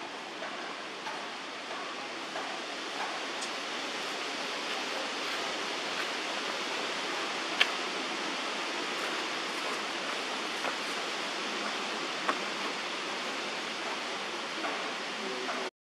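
Steady, even hiss of outdoor background noise, with a few small clicks scattered through it, the sharpest a little past halfway.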